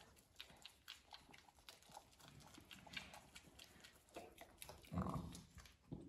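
Faint shuffling and small clicks as a ewe and her newborn lamb move about on the barn floor, with one short low sheep call about five seconds in.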